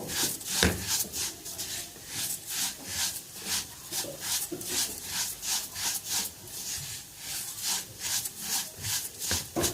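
Spoon stirring and scraping vermicelli as it toasts in oil in a pot, in short even strokes about three times a second. The vermicelli is being browned deep and dark before the rice is added.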